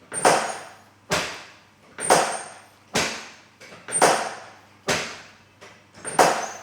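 A steady series of sharp knocks, about one a second, each dying away over about half a second.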